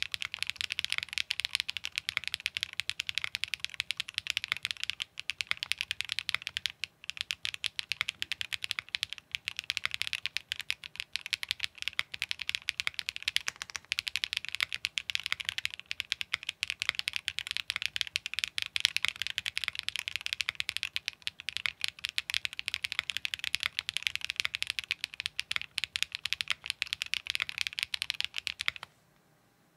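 Continuous fast typing on a Matrix 6XV 3.0 Corsa mechanical keyboard with lubed Geonworks Black switches, an aluminium plate, GMK keycaps and no foam: a dense stream of keystroke clacks that stops abruptly just before the end.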